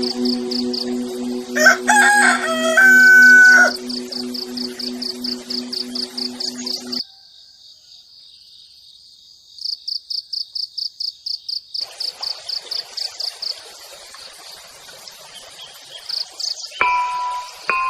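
A rooster crows loudly once, about two seconds in, and another crow begins near the end. Between them a high insect chirping goes on in fast, even pulses. A steady low hum runs under the first seven seconds, then cuts off abruptly.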